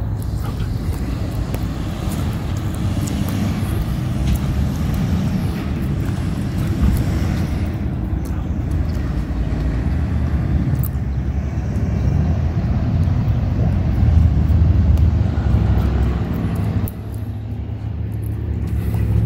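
Outdoor street ambience: a steady low rumble of road traffic, swelling about two-thirds of the way through.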